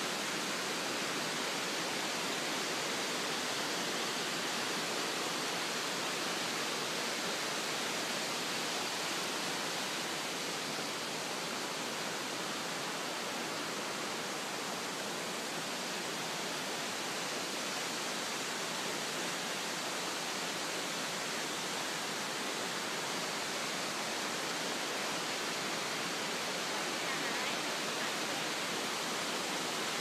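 Steady rushing of a tall waterfall heard from a distance: an even hiss of falling water that holds at one level throughout.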